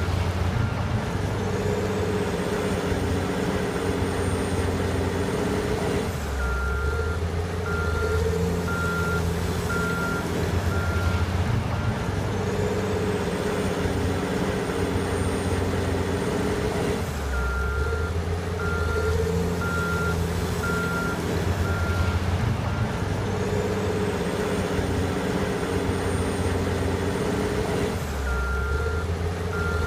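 Caterpillar 980 wheel loader's diesel engine working through its load-and-back-up cycle. Its reverse alarm beeps about twice a second in runs, near the start, twice in the middle and at the end, each time the loader backs up. Between the runs a high whine rises and holds as the engine revs.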